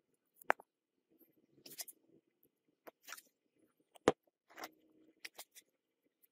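Damp moulding sand being pressed and packed by hand into a wooden casting flask: scattered gritty crunching and scraping, with two sharp knocks, one about half a second in and a louder one about four seconds in.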